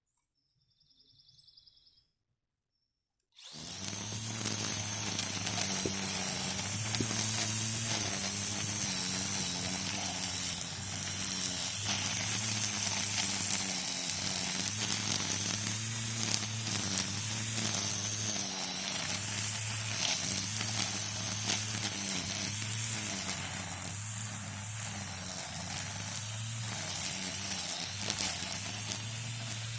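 String trimmer (weed eater) running, coming in abruptly about three seconds in after near silence. Its motor hum swells and dips every second or two over a steady hiss of the cutting line.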